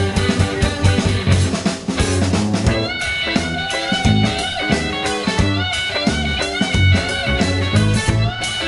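Live rock band playing: electric guitars, bass guitar and drum kit. Held, bending guitar notes come in about three seconds in over the steady drumming.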